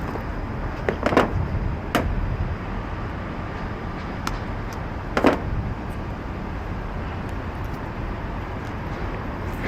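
Steady low background rumble with a few sharp clicks and knocks, about a second in, at two seconds and just after five seconds, typical of parts and tools being handled during an air conditioner contactor replacement.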